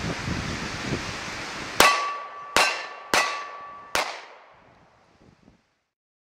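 Wind buffeting the microphone, then four 9mm shots from a Beretta Nano pistol in about two seconds, with the hit steel plates ringing on between them; the ringing dies away after the last shot.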